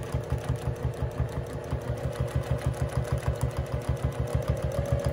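Juki sewing machine running steadily at speed for free-motion quilting, feed dogs lowered: a fast, even rhythm of about nine or ten needle strokes a second over the hum of the motor.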